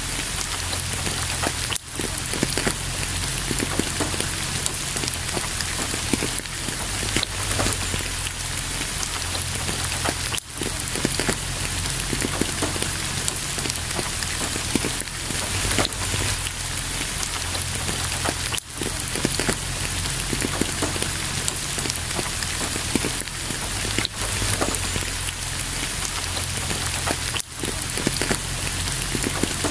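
Steady rain falling, a dense even patter, with a few brief dips in level.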